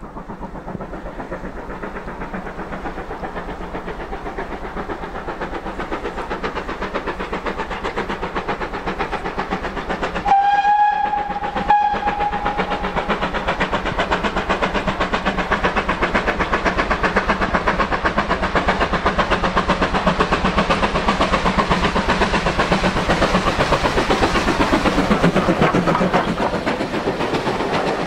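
GWR 5101 class 2-6-2 tank engine no. 4160 climbing with a passenger train, its steam exhaust beating rhythmically and growing louder as it approaches. About ten seconds in the whistle sounds for two to three seconds, and near the end the engine passes close by and the coaches follow.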